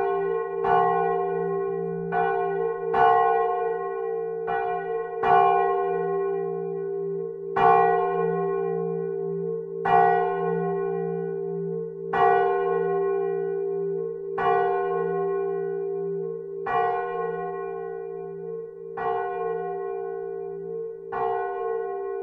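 Swinging bronze church bell ringing in its tower, the clapper striking about every two seconds over the bell's long, steady hum. The strikes come closer together in the first few seconds, then settle into an even swing.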